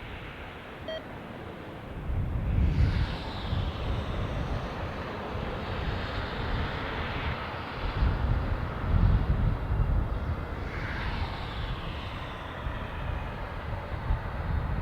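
Jet engines of a Boeing 777-300ER (twin GE90s) on a landing pass, a rumbling roar that jumps up about two seconds in and swells again around eight seconds.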